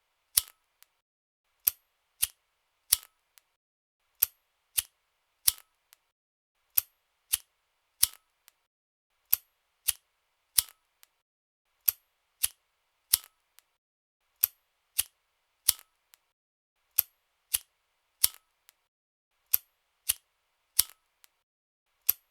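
A lighter clicking over and over: short, sharp clicks, mostly in pairs about half a second apart, with a pause of about a second between pairs. No flame sound is heard between the clicks.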